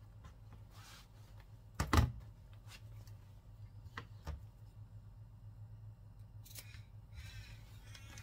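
Scissors cutting through fabric in a few separate snips, with one loud knock about two seconds in, over a low steady hum.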